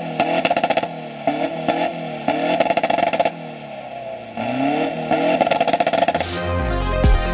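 Mitsubishi Triton pickup's diesel engine revved hard in quick repeated blips, its pitch rising and falling, with a short drop and climb back up midway. About six seconds in, electronic dance music with a heavy beat cuts in.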